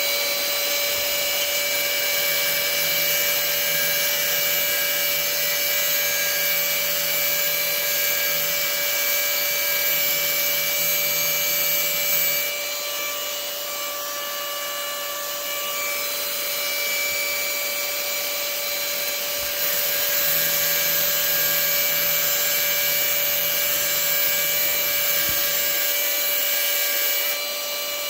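Angle grinder with a small cutoff wheel running at a steady whine, cutting a groove down the middle of a steel screw-in arrow field point. The sound drops for several seconds about halfway through, then comes back, and dips again near the end.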